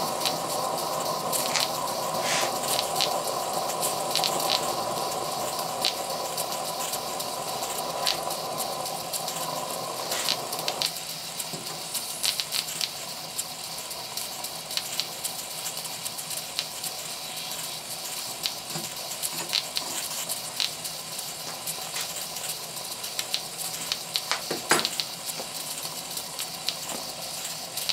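Stuart Progress oscillating steam engine running on low-pressure live steam: a steady hiss with irregular spitting and crackling, typical of steam and condensate spattering while the engine is still warming up. The hiss drops noticeably about eleven seconds in.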